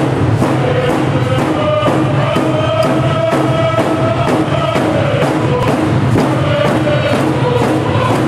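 A group of singers sings a Coast Salish canoe-family song in unison, with hand drums beaten at a steady even pulse.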